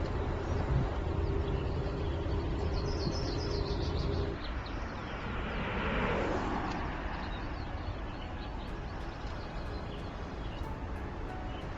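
Volkswagen ID. Buzz electric van driving: a steady low road rumble that stops abruptly about four seconds in, then tyre and road noise swelling and fading as the van passes, loudest about six seconds in. Birds chirp briefly about three seconds in.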